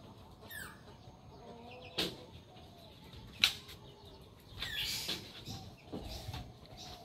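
Chickens clucking and giving short calls, with no full crow, and a couple of sharp clicks about two and three and a half seconds in.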